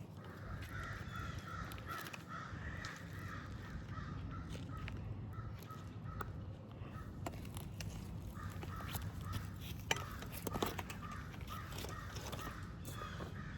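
A long series of harsh, rapidly repeated animal calls, several a second, pausing briefly about six seconds in and then resuming. A few sharp clicks come near ten seconds in.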